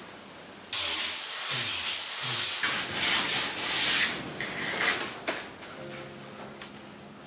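Sanding the shaped body plug at the car's tail: a few seconds of rough, irregular scraping strokes that then die away.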